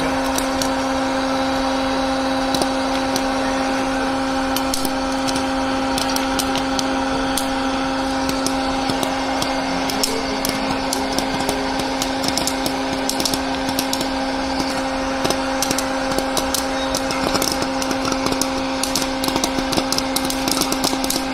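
Oil-free hot-air popcorn maker running with a steady motor-and-fan hum while the kernels inside pop, the pops coming thicker after about ten seconds.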